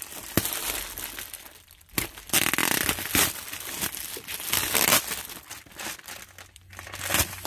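Plastic wrap crinkling and tearing as a vacuum-sealed, double-sealed bag around a compressed plush pillow is pulled open by hand, in irregular crackles, louder from about two seconds in.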